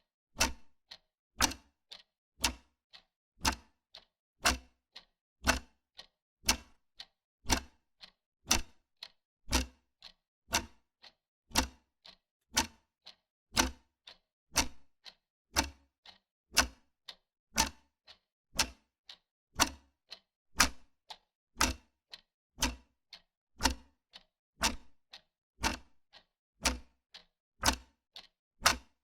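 Wall clock ticking steadily, about two sharp ticks a second.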